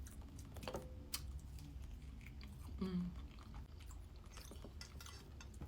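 Close-miked chewing of soft food, sausage and mashed potato with gravy, with small wet mouth clicks scattered through and a short pitched sound from the eater about three seconds in.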